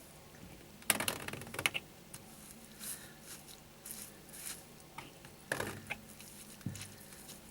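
Scattered light clicks and rustling as the plastic drain-pump filter cap of a Hotpoint Aqualtis washing machine is slowly turned by hand, with the loudest clatter about a second in and again near five and a half seconds.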